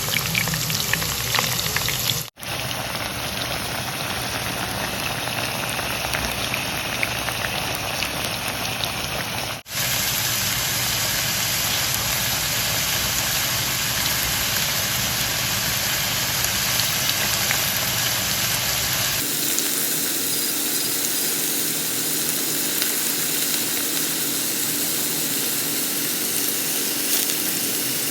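Cucumber pieces frying in hot oil, a steady dense sizzle. It breaks off sharply about two and ten seconds in, then goes on, and turns thinner and hissier about nineteen seconds in.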